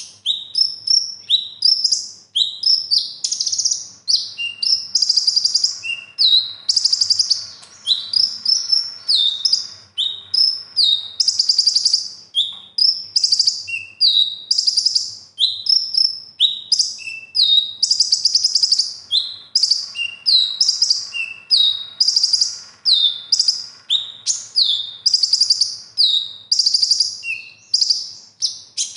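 A caged male kolibri ninja (Van Hasselt's sunbird) singing nonstop and loud. It pours out a rapid, unbroken string of high chirps and downward-sliding notes, with short lower notes slipped in among them. The song is packed with isian, phrases borrowed from other bird species.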